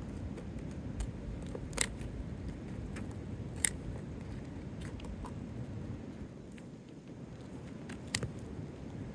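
Hands-on roofing work on an asphalt shingle: a steady low scraping and rustling of the shingle being handled, with three sharp clicks or snaps spread through it.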